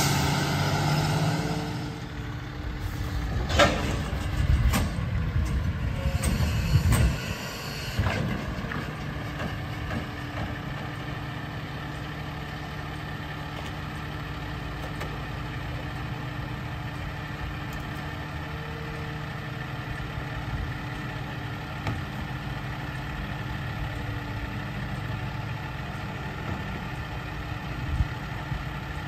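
Diesel engine of an automated side-loader garbage truck slowing as it pulls up, then a few sharp clunks and a hiss of air from the brakes as it stops, after which the engine idles steadily. A single knock comes near the end.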